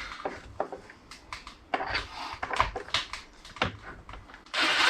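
Scattered light clicks and knocks of tools and parts being handled. Near the end a loud steady rushing noise starts abruptly.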